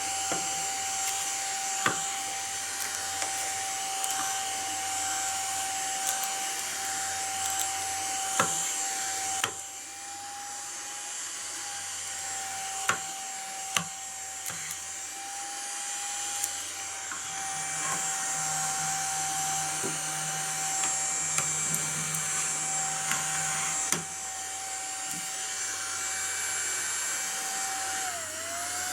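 Small battery-powered desktop vacuum cleaner running: a steady, high motor whine with airflow hiss and a few scattered clicks. The whine dips briefly in pitch near the end.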